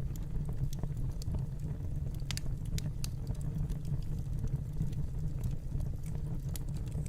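Fireplace crackling: irregular sharp pops and snaps over a steady low rumble.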